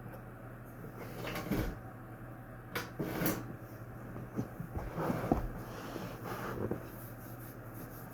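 A series of knocks and clunks, about half a dozen spread over several seconds, from things being handled and set down, over a steady low hum.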